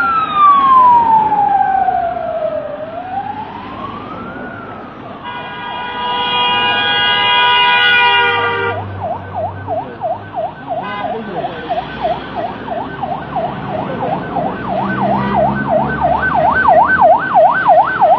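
Electronic sirens on motorcade escort vehicles: a slow wail rising and falling, then about five seconds in a steady horn tone for three seconds, then from about nine seconds in a fast yelp of roughly three sweeps a second that grows louder near the end. Vehicle engines rumble underneath as the convoy passes.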